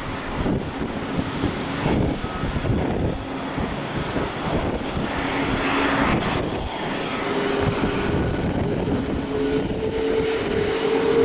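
Boeing 787-8 jet taxiing, its turbofan engines running with a steady rush and hum; a second, higher engine tone joins about seven seconds in.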